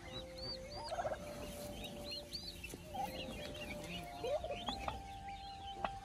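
Downy chicks peeping: many short, high, arched cheeps repeating rapidly under a broody hen, with a few soft handling knocks as a hand picks a chick up.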